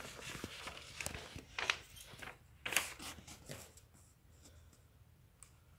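Rustling and sharp plastic clicks of small plastic model kit parts and their runner being handled, busiest in the first four seconds and then quieter.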